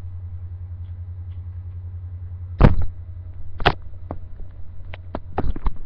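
Handling noise from the recording device: a steady low electrical hum with one loud sharp knock about two and a half seconds in, a second knock about a second later, and several lighter clicks near the end.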